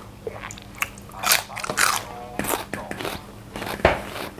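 Raw green pea pod bitten and chewed, with about four crisp crunches. The loudest crunches come about a second in and near the end.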